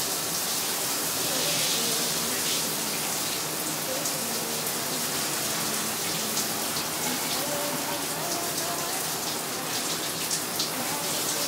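Handheld shower head spraying water over a puppy and onto the shower floor: a steady hiss of running water.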